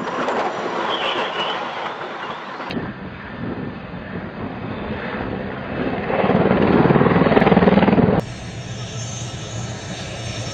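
Helicopter rotor and engine noise from several crash clips cut together. The loudest stretch, from about six seconds in, is a rapid buzzing chop as a helicopter flies low, and it cuts off abruptly about two seconds later.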